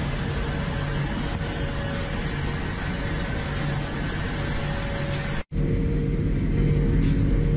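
Steady machinery drone aboard a fishing vessel: a low engine hum under an even hiss. It cuts out abruptly about five and a half seconds in, then comes back deeper and heavier.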